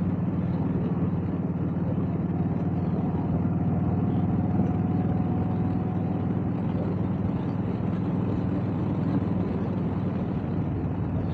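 Motorcycle engine running steadily while riding down the road, a constant low drone with no changes in pace.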